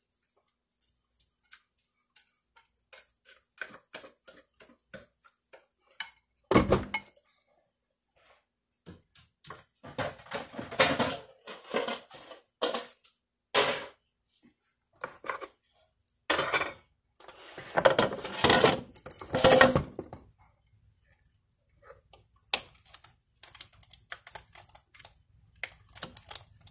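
A utensil scraping and knocking against a glass blender jar as a thick bean mixture is worked out of it, with irregular clinks and taps and one loud knock about six and a half seconds in. Longer stretches of scraping come in the middle.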